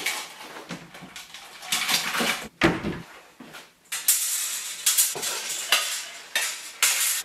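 Folding white wire clothes airer being folded up: its metal rails and legs clink and clatter irregularly, with one heavier knock a little under three seconds in and denser rattling in the last few seconds.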